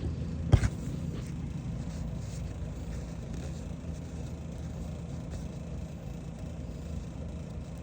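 Steady low hum of a motor vehicle engine running somewhere nearby, with one sharp click about half a second in.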